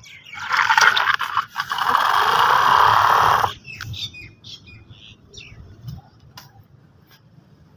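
A small electric motor and gears of a home-made toy tractor running with a rough, grinding whirr for about three seconds, then cutting off suddenly. Scattered light clicks and taps follow.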